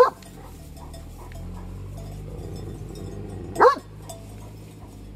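Anatolian shepherd dog giving two short, high-pitched yelping barks, one right at the start and another about three and a half seconds in, excited at the sheep beyond the fence.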